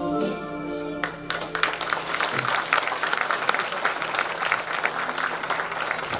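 Music with a jingling tambourine stops about a second in, and audience applause follows.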